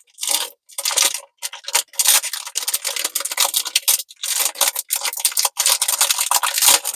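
Crinkling, crackling plastic packaging being handled and unwrapped, in loud irregular bursts with short pauses between them.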